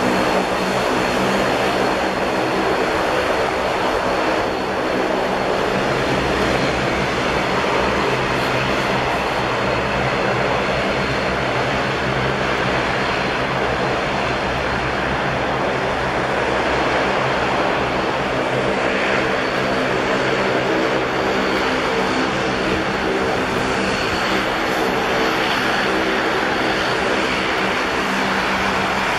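Bombardier Dash 8 Q400's two Pratt & Whitney PW150A turboprops running steadily at taxi power: a droning propeller hum with a thin, steady high whine above it.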